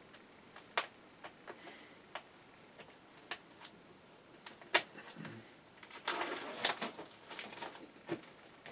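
Scattered light clicks and taps of computer parts being handled, with a denser run of clicks and rustling about six seconds in.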